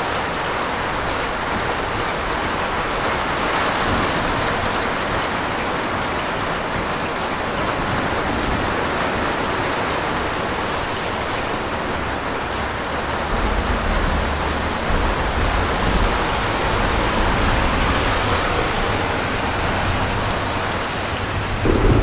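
Steady, heavy rain hissing. A little past halfway, a low rumble of distant thunder rolls in underneath. A louder thunder peal begins right at the end.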